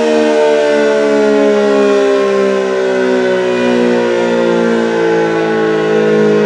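ACA Allertor 125 outdoor warning siren sounding a steady wail, its pitch sagging slowly. The rotator is broken, so the horn does not turn and the sound holds at an even loudness instead of sweeping up and down.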